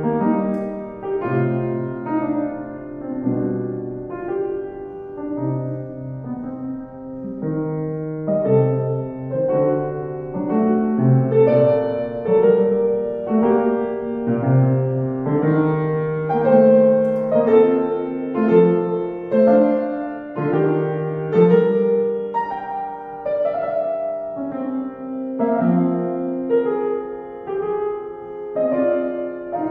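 Kawai upright piano playing a classical piece: a flowing melody over a moving bass line, swelling and easing in loudness phrase by phrase.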